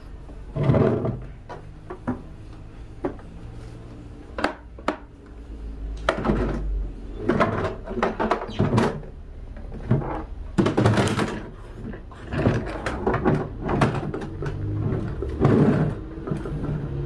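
Irregular knocks, clicks and thunks of things being handled and set down, a dozen or so spread unevenly, over a steady low hum.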